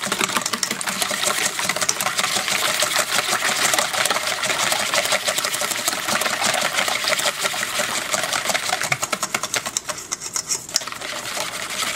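Wire whisk beating eggs in a mixing bowl: a fast, steady clatter of the wires against the bowl, which eases off briefly near the end.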